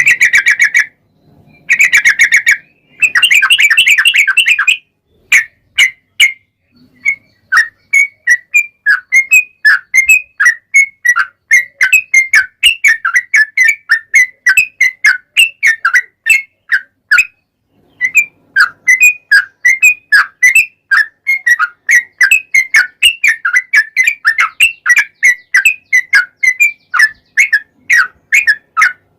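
Yellow-vented bulbul (trucuk) song: a long, fast run of short notes, about three or four a second, with a short pause about two-thirds of the way through, after a few seconds of denser unbroken trilling at the start. It is a lure song played to make captive trucuk answer.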